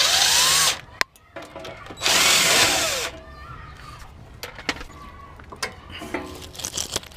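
Cordless impact wrench spinning a suspension nut loose on the sway bar, in two runs of about a second each, the second starting about two seconds in, its motor pitch rising and falling. Light metal clinks of tools and parts follow.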